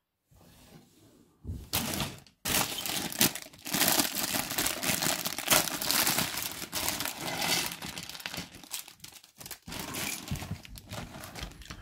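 Thin clear plastic bag crinkling and rustling as it is handled and opened, with small hard plastic toy parts clicking and knocking against each other and the table. The rustling starts after about a second and a half and goes on to the end.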